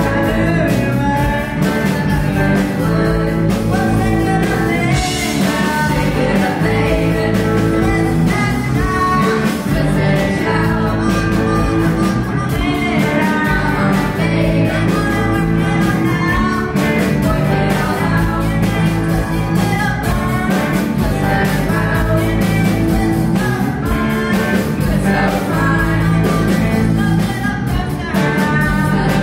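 Student rock band playing live with a singer: sung vocals over guitar and a steady drum beat, continuous and loud.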